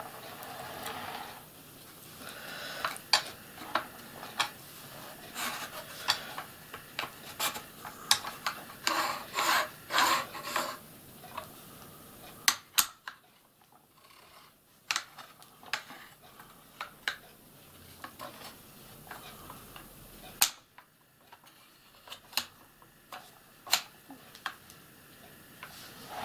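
Rusty cast-iron carriage and slides of an old micro lathe being pushed and shifted along its bed by hand: a string of metal clicks and knocks, with a stretch of metal scraping.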